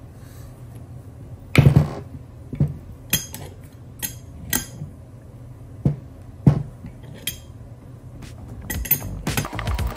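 Steel adjustable wrenches clinking and knocking against the nut and bolt of a uniball press tool as they are set and turned, tightening the tool to push the old uniball out of an aluminium-housed upper control arm. About a dozen irregular sharp metallic clinks, the loudest about one and a half seconds in.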